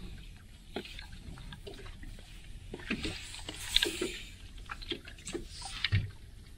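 Choppy water lapping and splashing against a fiberglass boat hull, with wind rumbling on the microphone and scattered light clicks and knocks.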